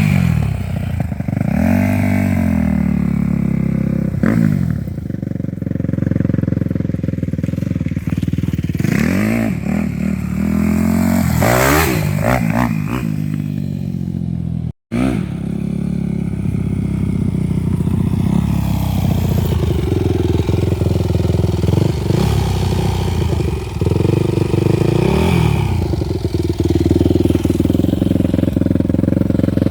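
Yamaha YZ250F's 250 cc four-stroke single-cylinder motocross engine being ridden hard, its pitch repeatedly rising and falling as the throttle is opened and shut through the gears. The sound cuts out for a moment about halfway; after that the engine note is steadier, with a few shorter rises.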